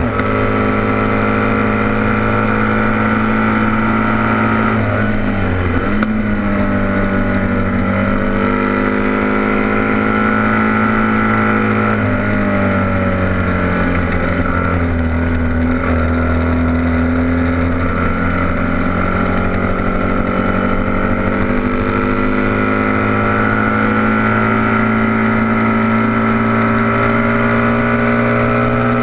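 Racing motorcycle engine running hard at high revs, heard from an onboard camera with wind noise. The revs drop sharply about five seconds in and again about twelve seconds in as the bike slows for bends, then climb steadily back up.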